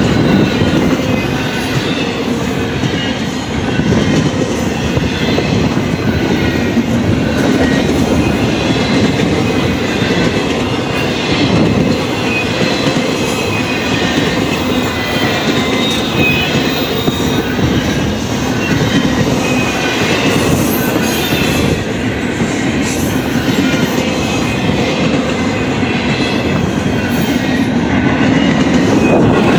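Double-stack intermodal container train rolling past: a steady rumble of the cars, with wheel clatter and a faint, wavering high-pitched wheel squeal.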